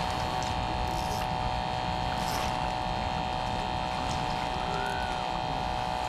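A steady mechanical hum made of several even, unchanging tones over a low noisy wash, with no clear events in it.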